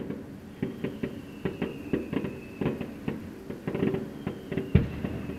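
Aerial fireworks shells bursting in an irregular run of bangs and crackles, two or three a second, with one heavier boom near the end. A thin high whistle, sagging slightly in pitch, sounds twice for a couple of seconds each time.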